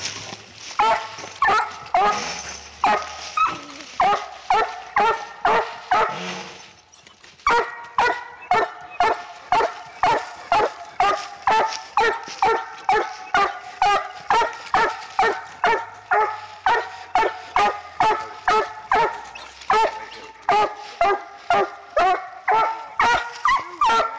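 Six-month-old Treeing Walker–cross coonhound pup barking steadily at a raccoon, about two barks a second, with a short pause about seven seconds in.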